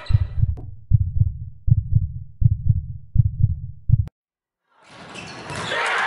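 Heartbeat-like deep bass thumps, about one every three-quarters of a second, added to the soundtrack for suspense. They cut off suddenly about four seconds in. After a brief silence, a crowd cheering in the gym fades in near the end.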